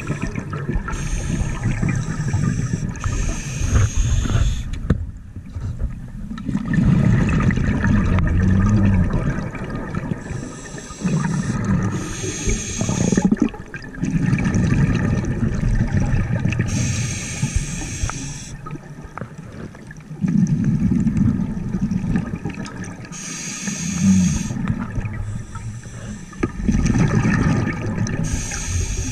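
A scuba diver breathing through a regulator underwater. A short hiss of inhalation comes every five or six seconds, each followed by a low, bubbling burst of exhaled air lasting a couple of seconds.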